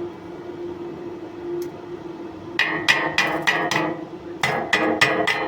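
Hammer striking steel with sharp, ringing metallic blows, about three to four a second, in two runs starting about halfway through, over a steady low hum.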